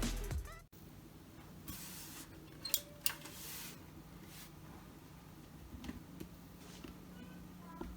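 Background music cutting off, then faint handling sounds of PC hardware being fitted into a case: a few sharp clicks and short scraping swishes over a low steady hum.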